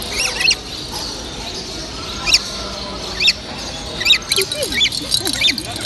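Small caged parrots chirping: short high chirps every second or so, with a few lower sliding calls near the end, over the murmur of a busy hall.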